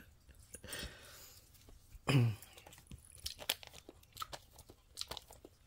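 Quiet eating sounds from tasting mango sorbet off a spoon: a soft hiss near the start, a short low 'mm' with falling pitch about two seconds in, then scattered small mouth clicks and lip smacks.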